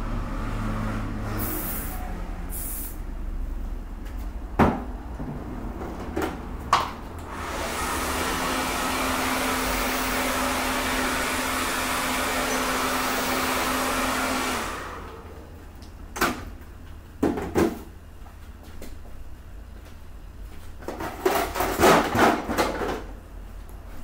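Two short hisses of an aerosol hairspray can in the first few seconds, then a hand-held hair dryer runs for about seven seconds with a steady hum underneath its blowing, and cuts off. After it, a few scattered clicks and a short run of knocks near the end.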